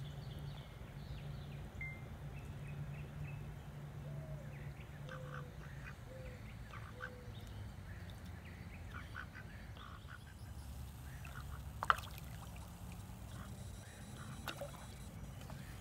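Ducks quacking in short scattered calls, over a low steady hum, with one sharp click about three quarters of the way through.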